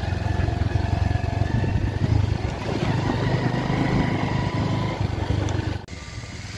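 Single-cylinder engine of a Bajaj Avenger motorcycle running steadily while riding, with road and wind noise over it. The sound drops abruptly and turns quieter near the end.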